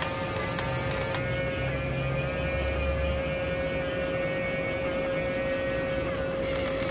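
Battery-powered toy fire truck's small electric motor and gearing humming steadily as its aerial ladder rises, with a few light clicks in the first second.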